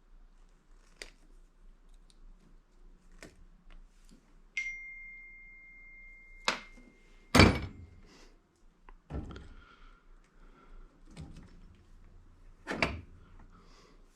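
Scattered knocks and clunks of metal parts being handled and set down, the loudest about halfway through. One knock leaves a single clear ringing tone that lasts about two seconds.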